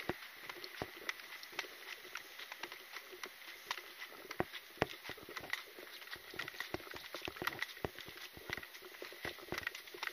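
Footsteps on a concrete sidewalk, mixed with irregular clicks and rattles of carried gear, several a second.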